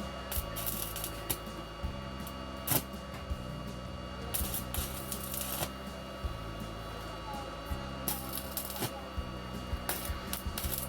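Stick welding with a small inverter welder set to about 80 amps: the arc crackles and sizzles in short irregular runs over a steady electrical hum.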